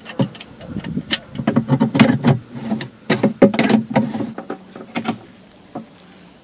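Clicks and knocks of a small metal key turning the fitting that draws two kayak sections together inside the hull, with hands rubbing and handling the parts. This is the final tightening with the key, needed because the fitting is too hard to turn by hand where the hull narrows. The clicking stops a little past four seconds in.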